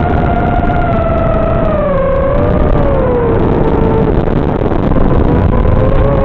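An FPV aircraft's motor and propeller run with a steady whine that sinks in pitch about two seconds in and stays lower, under a heavy rush of wind noise on the onboard microphone.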